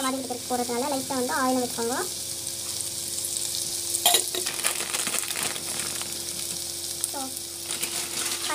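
Sliced onions and green chillies sizzling steadily in hot oil in a pan, with a sharp knock about four seconds in.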